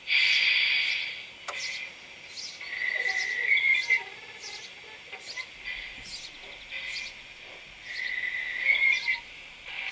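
Model steam locomotive's sound module playing the recorded sound of an HG 3/3 rack steam locomotive: a burst of steam hiss at the start, then soft chuffs at a slow, even pace. A bird sings twice in the background.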